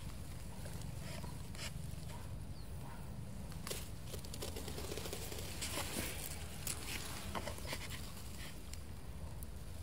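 Faint scattered light taps and rustling over a steady low rumble.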